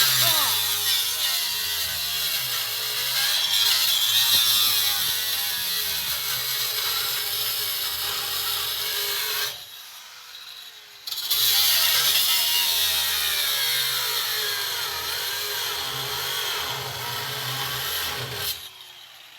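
Power saw cutting into a steel ATM door, throwing sparks, its pitch wavering as the blade loads up in the metal. It cuts for about nine seconds, stops for a second and a half, then cuts again and stops shortly before the end.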